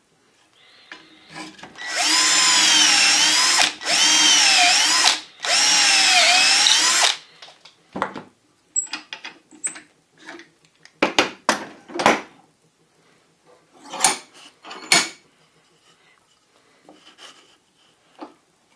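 Electric drill boring dowel holes through a metal doweling jig into the end of a wooden rail: three runs of a few seconds each, the motor's whine dipping in pitch as the bit bites and rising again as it eases. Afterwards come scattered light clicks and knocks as the jig and the workpiece are handled.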